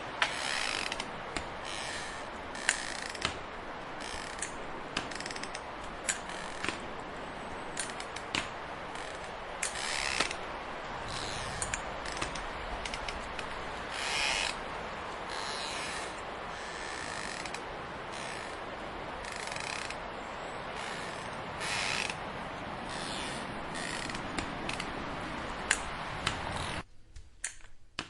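A person walking on crutches: irregular clicks and taps from the crutches, with short creaks, over a steady hiss. It stops abruptly near the end.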